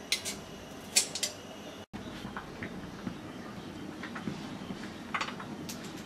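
Metal serving utensils clinking against a pot and dishes as cooked kabsa rice and chicken are served: a few sharp clinks near the start and about a second in, then lighter scattered clinks.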